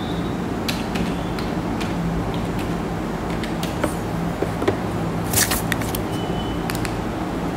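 Steady low room hum with a few faint, scattered clicks.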